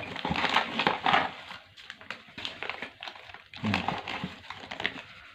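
Crinkling plastic packaging and light clicks of small plastic RJ45 connector parts being handled. Busiest in the first second or so, then sparser.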